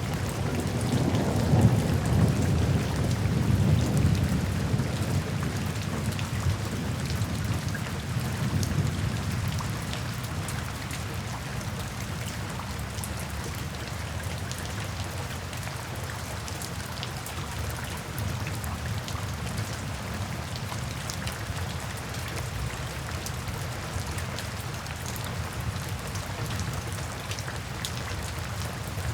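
Steady rain falling into puddles and standing water, with many small drop ticks. A low rumble of thunder in the first few seconds fades away.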